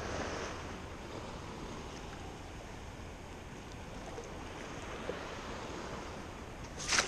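Shallow water washing and sloshing around wading legs, with some wind on the microphone; a short sharp splash near the end.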